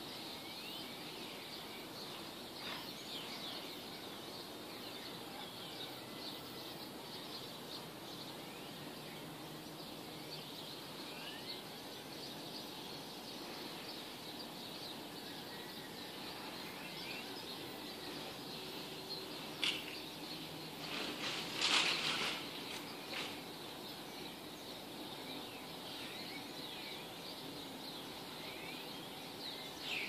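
Dawn birdsong: many small birds chirping and twittering over a steady faint background hiss. About twenty seconds in there is a louder, sharp burst of sound lasting a couple of seconds.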